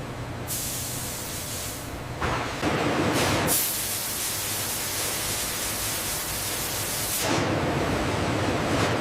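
Hissing noise in two long stretches, one from about half a second to two seconds and a stronger one from about three and a half to seven seconds, with a lower rushing noise between and after, over a low steady hum.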